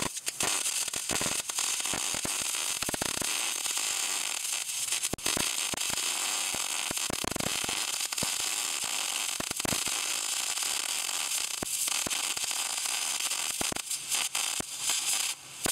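MIG welding arc running a vertical-down weld to fill a gap in steel: a steady crackling hiss thick with small pops, stopping near the end as the arc is broken.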